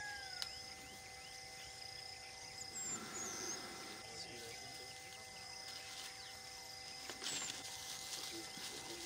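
Outdoor ambience in open grassland: a few short high bird chirps and a whistled call over a steady high insect buzz, with faint steady tones underneath.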